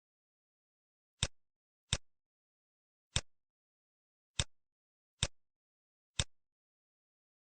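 Computer mouse clicking, six single sharp clicks at uneven intervals with silence between them.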